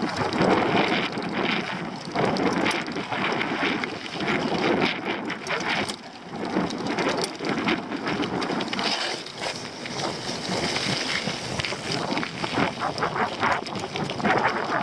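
Mountain bike riding fast down a dirt forest trail: wind rushing over the camera microphone, with tyres on loose dirt and many short rattles and clatters from the bike over bumps.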